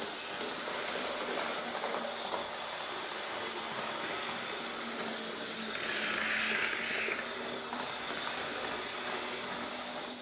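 Hornby Class 466 model electric multiple unit running on its track: a steady motor whir and the sound of wheels on the rails. It grows louder for about a second around six seconds in as the unit passes close by.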